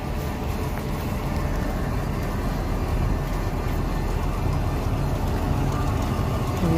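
Steady low rumble of city street traffic, with a heavy engine such as a bus running.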